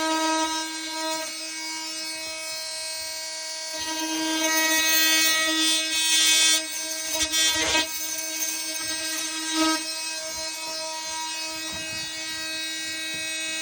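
Oscillating multi-tool running with a steady high-pitched whine while cutting, getting rougher and louder as the blade bites in about six to eight seconds in.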